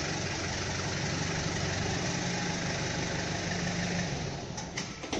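A vehicle engine idling steadily, dying away after about four seconds, with a couple of sharp clicks near the end.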